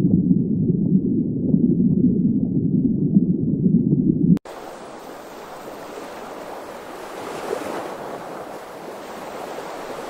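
Muffled, low underwater water noise, which cuts off abruptly about four seconds in. It gives way to a quieter, even hiss of ocean surf and moving sea water.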